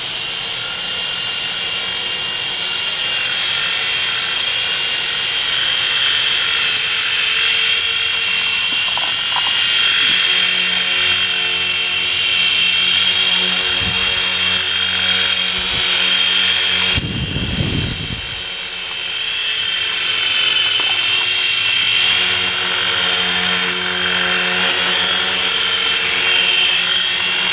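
Mini Chinook RC helicopter's small electric motors and tandem rotors running with a steady high whine, the lower hum shifting as the power changes. About 17 s in, the whine dips briefly under a short low rumble.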